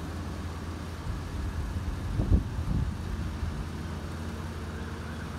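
Level crossing yodel alarm wailing faintly over a steady low rumble, with a brief low thump a little over two seconds in.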